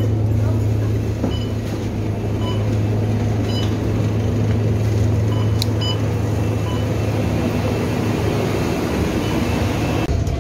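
A city bus's engine running with a steady low drone, heard from inside the passenger cabin, with a few short high beeps over it.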